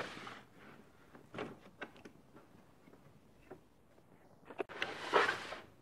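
Plastic Festool Systainer³ tool case being handled: a short scraping slide at the start, a few light clicks and knocks, and a longer scraping rustle near the end.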